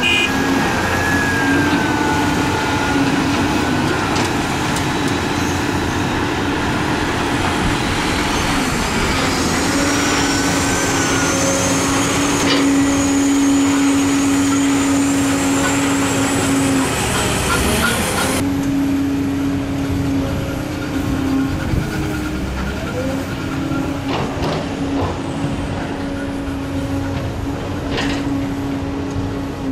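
Heavy diesel engines of a Caterpillar 320B excavator and a loaded dump truck running steadily, with a whining tone that climbs in pitch midway. About two-thirds of the way in, the sound changes abruptly to a loaded dump truck's diesel engine pulling away.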